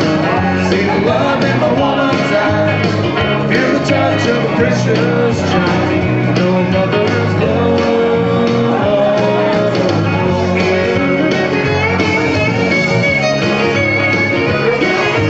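Karaoke performance of a country song: a loud backing track with guitars, with a man singing along into a microphone through a PA.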